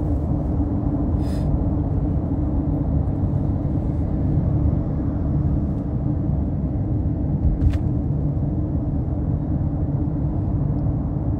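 Steady low road and engine rumble inside the cabin of a moving car, with one short click about two-thirds of the way through.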